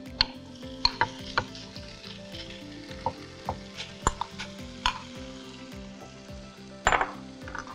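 Chopped onion frying in butter and oil in a pan, sizzling as it is stirred, with a spoon knocking against the pan about once a second. A louder clatter comes near the end.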